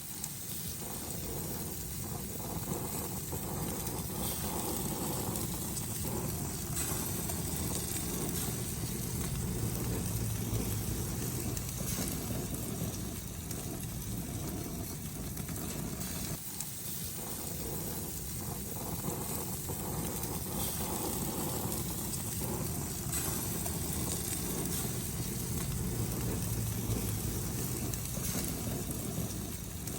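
Fish sizzling on a grill: a steady hiss with scattered small pops, over a low steady rumble.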